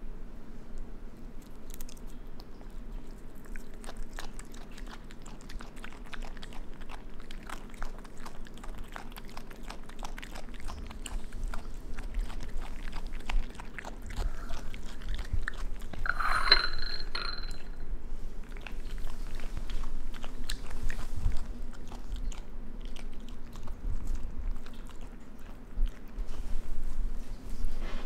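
A raccoon chewing and crunching insects close to the microphone: a quick, uneven run of small crunches and clicks. About halfway through there is a brief high-pitched sound, the loudest moment.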